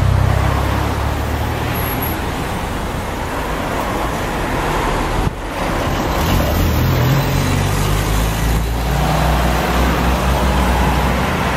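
Road traffic: cars and vans driving past one after another close by, a steady mix of engine hum and tyre noise.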